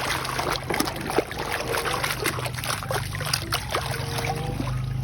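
Thick wet mud squelching and crackling as it is rubbed and scraped off a toy by hand, a dense run of small irregular wet clicks.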